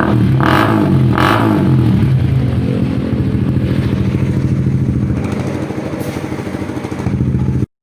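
Honda CBR150R's single-cylinder engine running through an aftermarket Akrapovic M1 muffler, blipped twice in the first second and a half, then idling down with a slight rise near the end. The sound is loud and cuts off suddenly.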